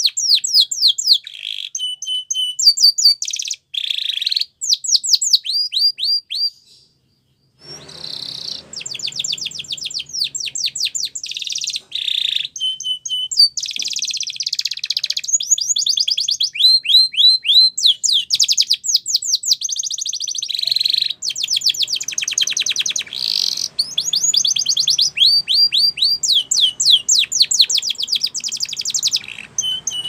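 Spanish Timbrado canary singing: fast trills of repeated falling whistled notes and rolls, with a brief pause about seven seconds in.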